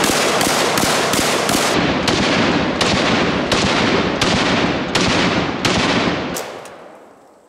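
Cobray Street Sweeper 12-gauge revolving-drum shotgun firing about a dozen shots in one string, now running through cleanly with its drum spring wound after a jam. The shots come about four a second at first, then slow to roughly one every three quarters of a second, and the last one rings out and fades.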